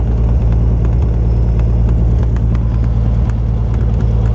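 Single-engine Cessna's piston engine and propeller running steadily, heard from inside the cabin as an even, deep drone.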